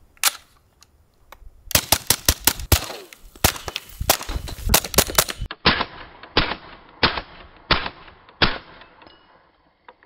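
Kriss Vector in subsonic .45 ACP firing through a Rugged Obsidian 45 suppressor. One shot, then quick strings of rapid semi-auto shots, then five single shots about two-thirds of a second apart. The round stays below the speed of sound, so the shots have no supersonic crack.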